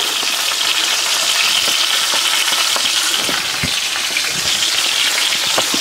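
A smoked top round roast (London broil) sizzling steadily in hot lard in a cast iron pan during its reverse sear, with a few scattered pops.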